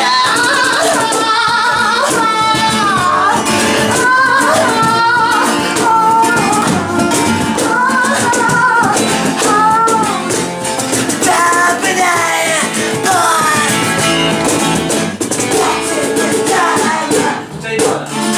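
Small acoustic band playing live: strummed guitar under a sliding, wavering lead melody.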